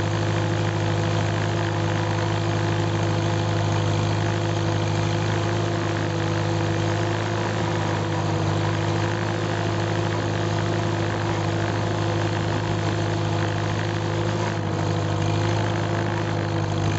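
1951 Farmall H tractor's four-cylinder engine running steadily while driving, heard from the driver's seat close behind the upright muffler. The engine note holds even, with no change in speed.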